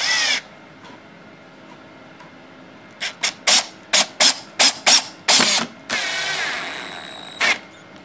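Porter-Cable cordless drill/driver driving a drywall screw into a pine board through a pilot hole: a brief spin at the start, a quick series of short trigger blips about three seconds in, then a longer run of about a second and a half with the motor's pitch falling as the screw drives home, stopping near the end.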